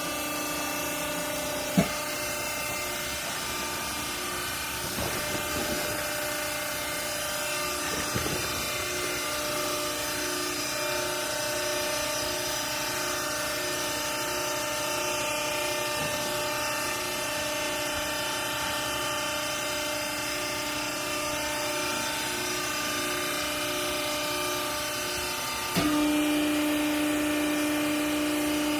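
Vertical clothing baler's electric motor and hydraulic pump running with a steady hum. A sharp knock about two seconds in, and near the end the hum suddenly steps up louder.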